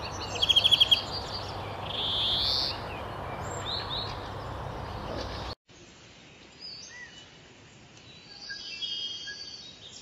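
Water running over a concrete weir into a shallow pool: a steady rush, with birds chirping and a rapid trill over it. About five and a half seconds in, the sound cuts suddenly to a much quieter rush with a few faint bird calls.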